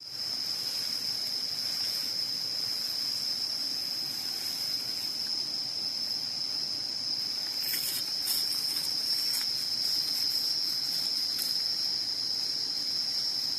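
Steady high-pitched insect chorus, one unbroken shrill drone. A few faint clicks or rustles come at around the middle.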